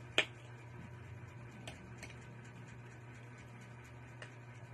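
Small knife cutting into an unripe Indian mango held in the hand: one sharp click just after the start, then a few faint ticks, over a steady low hum.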